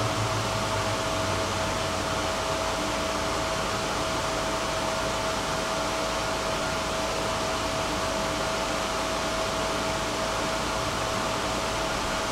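A tram's ventilation and electrical equipment running, a steady whirr with one constant high whine over it.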